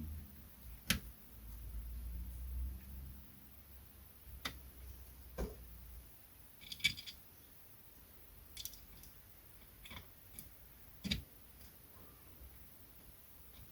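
Scattered small clicks and taps of screws, a tool and hard plastic parts being handled as an intercooler kit is screwed onto a 1:10 RC car chassis. There are about a dozen of them, with a quick cluster of ticks about seven seconds in.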